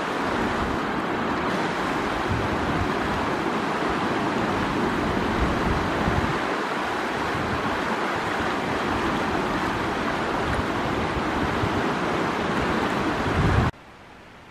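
Fast river rushing over rocks, a loud, steady rush of whitewater with wind buffeting the microphone in low gusts; it cuts off suddenly just before the end.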